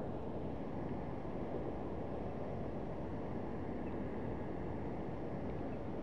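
Steady rushing of a fast-flowing stream, its water pouring over a small weir, with no breaks or distinct sounds.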